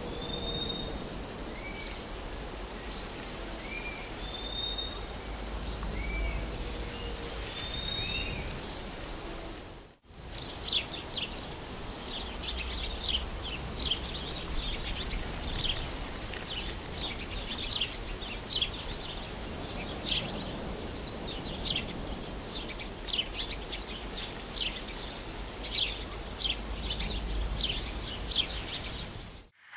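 Outdoor nature ambience: for about ten seconds a steady high insect drone with a few short rising bird calls, then, after a sudden break, a dense chatter of short high bird chirps.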